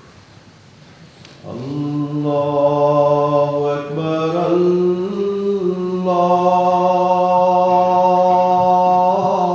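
A lone man's voice calling the adhan, the Islamic call to prayer, unaccompanied in long drawn-out sung notes. It comes in about a second and a half in after a pause between phrases, and steps up in pitch a few seconds later.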